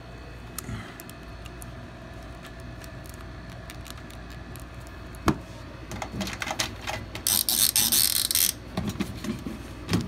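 Clicks of buttons being pressed on an air fryer's control panel that gets no response, with handling knocks and a loud rustle about a second long near the end.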